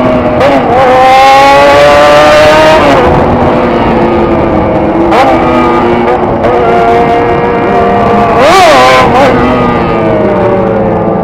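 Loud vehicle engine and exhaust running, with the pitch jumping up and dropping back in quick revs three times between slower drifts in engine speed.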